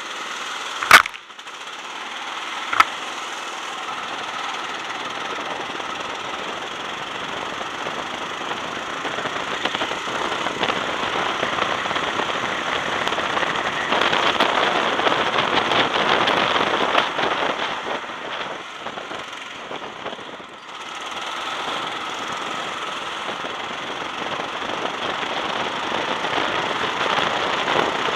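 A go-kart's Honda engine running as the kart pulls out of the pits and drives onto the track, heard with rattle and wind noise on the onboard camera. Two sharp knocks come about one and three seconds in, the first the loudest. The running noise grows louder from about ten seconds and eases for a moment around twenty seconds.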